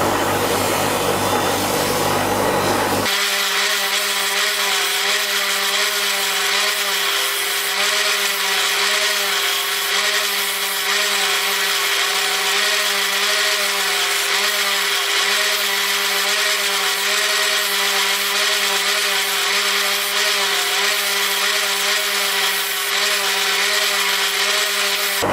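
A handheld power tool running steadily and loudly. The sound changes abruptly about three seconds in to a higher, hissing whine with a slightly wavering pitch.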